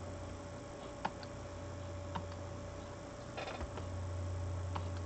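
A few faint, sharp computer mouse clicks, spaced a second or more apart, over a steady low electrical hum.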